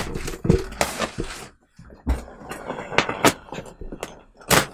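Compressed plastic bag of fiberglass insulation batts being slit open, the plastic wrapper crinkling and crackling as the batts spring out of it, with a dull thump about two seconds in.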